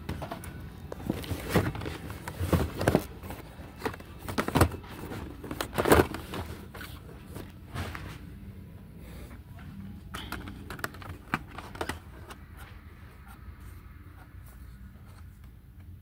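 Irregular knocks, taps and rustles of objects being handled, coming thick and fast for the first half and only now and then after that.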